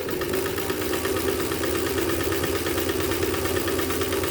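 Free Westinghouse 3/4 size long-shuttle sewing machine running steadily at speed on its rubber-wheel motor drive, a steady motor hum with a fast, even clatter from the needle and shuttle mechanism.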